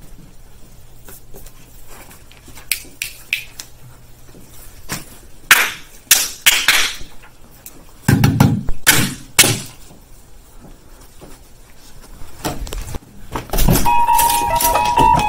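Scattered knocks and clatter, with a heavy thump about eight seconds in. Plucked acoustic guitar music starts near the end.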